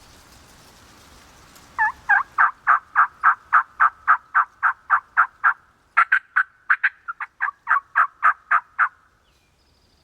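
Turkey yelps: a run of about fifteen short, evenly spaced yelps at about four a second, then a brief pause and a second, more uneven run that ends near the end.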